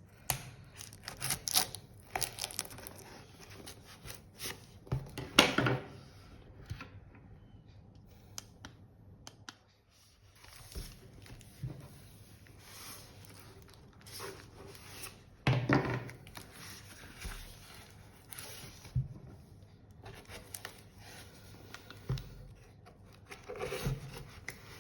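Packaging being torn and pried open by hand: irregular tearing, crinkling and scraping, with a louder sharp rip or knock about five seconds in and another past the middle, and a brief lull in between.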